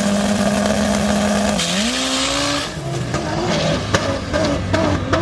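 Turbocharged 2.0-litre four-cylinder of a 1987 VW Jetta methanol drag car revving. It holds a steady high rpm, blips higher with a rushing hiss, then drops back to a lumpy lower idle with a few sharp pops.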